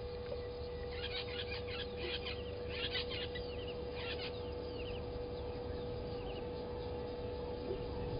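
Blacksmith lapwing calling: several quick runs of sharp, clinking 'tink' notes between about one and four seconds in, over a steady hum.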